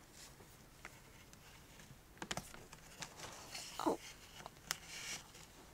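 Faint handling sounds of a doll wig being pulled and pressed onto a ball-jointed doll's head: soft rustling and small scattered clicks, with a brief falling squeak about four seconds in.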